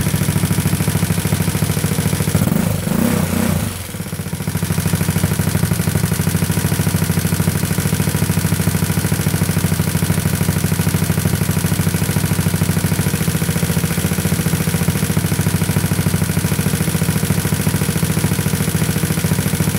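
Big-bore GY6 scooter engine, a four-stroke single with a free-flow exhaust, idling steadily; it is warm with the auto-choke off and its idle mixture near the ideal 14.7 air-fuel ratio. The sound drops briefly about three seconds in, then settles back to an even idle.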